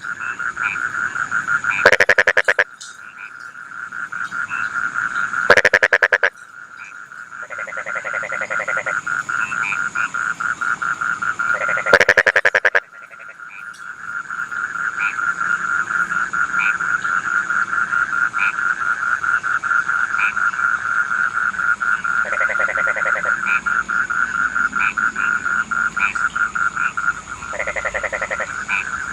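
A chorus of rice-field frogs calling in rapid trills without pause, with three much louder calls from a frog close by, at about two, five and twelve seconds in. A faint steady high tone sits behind the chorus.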